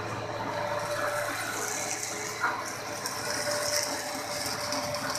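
Textured soy protein extrusion machinery running: electric motors and belt-driven screws give a steady mechanical whir over a low hum, with a fluctuating hiss on top.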